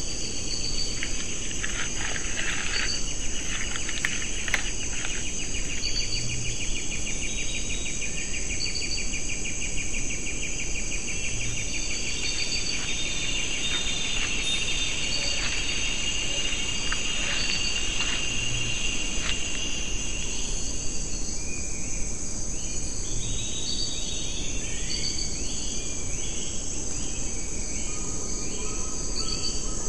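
Rainforest insect chorus: steady high-pitched trilling with a pulsing buzz beneath it through most of the stretch. From about two-thirds of the way in, a run of short chirping calls repeats over it.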